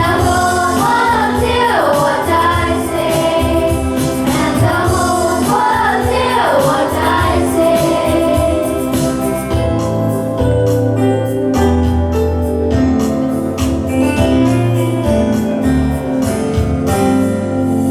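A song with voices singing over instrumental accompaniment. The voices drop out about seven seconds in and the accompaniment carries on alone with held notes and a bass line.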